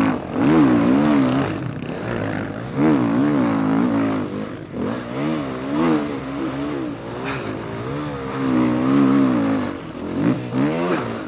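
Motocross bike engine heard from the rider's onboard camera, revving up and down again and again as the throttle is worked through muddy ruts.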